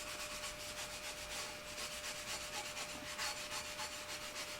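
Light rubbing strokes, a few a second, on the surface of a freshly laser-engraved, masking-taped plate as it is wiped clean instead of washed. A faint steady hum runs underneath.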